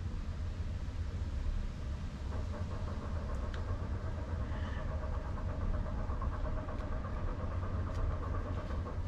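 A steady low rumble like an engine running at idle, with a few faint clicks over it.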